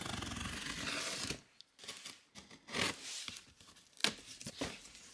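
Folding utility knife slicing through packing tape along a cardboard box seam: a steady scraping cut for about a second and a half, then scattered rustles and clicks of the cardboard being handled.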